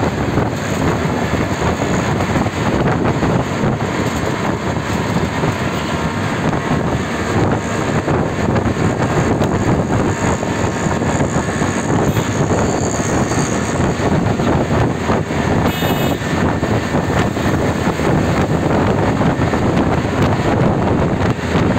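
Steady road and engine noise of a vehicle driving through city traffic, with wind buffeting the microphone. A brief high beep about sixteen seconds in.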